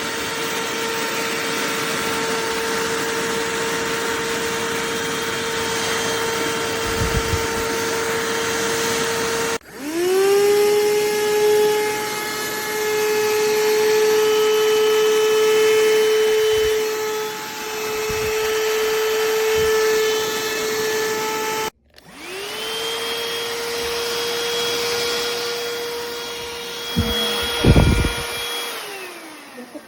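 Cordless handheld vacuum's motor running with a steady whine. It cuts out about ten seconds in and again a little past twenty, each time starting straight back up with a rising pitch as it spins up. Near the end the pitch falls as it winds down, with a few dull bumps.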